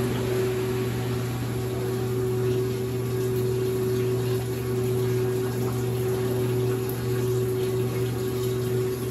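Late-1970s Maytag A806 top-load washer running: a steady motor hum over the sound of rushing water, with the pump working.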